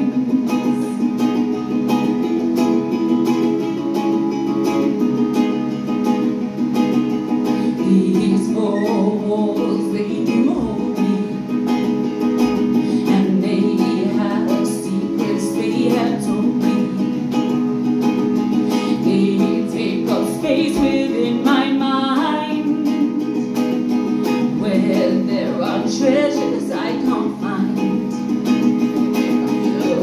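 A ukulele strummed in a steady rhythm under a woman's sung melody: a solo acoustic song played live.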